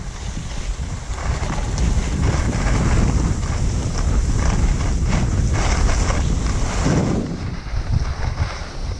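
Wind buffeting the microphone while skiing downhill, with the skis hissing and scraping over groomed snow. The rush grows louder about a second in as speed builds.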